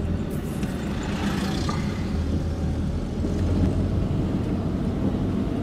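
Car engine and road noise heard from inside the moving car's cabin, a steady low drone.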